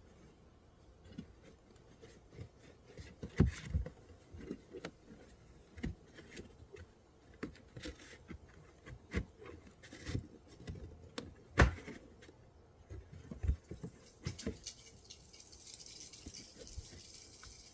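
Hands working in a car's open trunk: scattered clicks, taps and knocks of trim and parts being handled, two of them sharper than the rest. A steady hiss sets in about thirteen seconds in.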